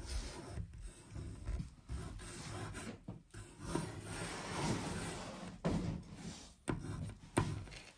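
Marker tip rubbing and scraping across a wall in uneven strokes, some short and one longer stretch in the middle, with a few small clicks.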